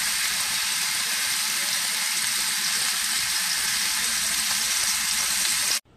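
Steak sizzling in a ridged cast iron grill pan: a steady, loud frying hiss that cuts off suddenly near the end.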